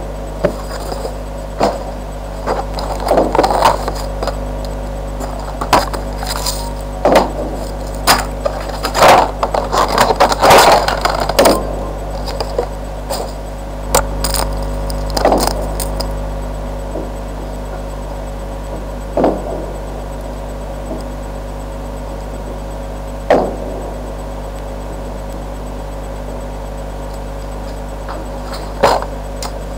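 Clear plastic headphone packaging being handled and opened, with a run of knocks, clicks and rustles for about the first half, then only a few single knocks, over a steady low electrical hum.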